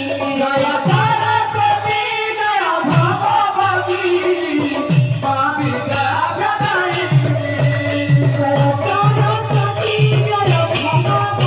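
Live kirtan music: a low drum whose strokes drop in pitch, jingling metal percussion and a wavering melody. The drum settles into a steady beat of about two strokes a second about halfway through.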